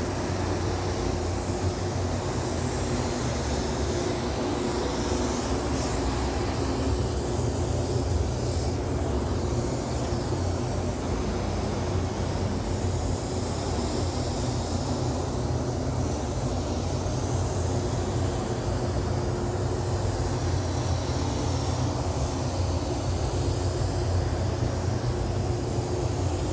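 Steady drone of a paint spray booth's ventilation fans, with a low hum, and the hiss of an Iwata gravity-feed spray gun blowing compressed air as it sprays sealer.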